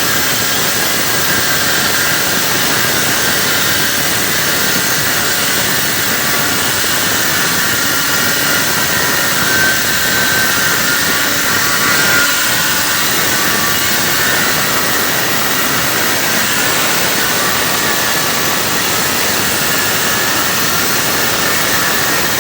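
Angle grinder running with its cutting disc in tile, a steady loud whine and hiss.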